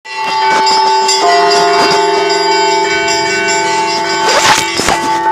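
Russian Orthodox church bells rung by hand by a bell ringer: rapid strikes of the small bells over the sustained ringing of larger bells, several pitches sounding together. A louder cluster of strikes comes near the end.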